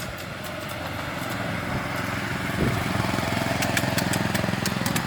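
Engine of a miniature-railway Class 35 diesel-outline locomotive running with a steady low throb that grows louder about halfway in. A run of sharp clicks joins it in the second half.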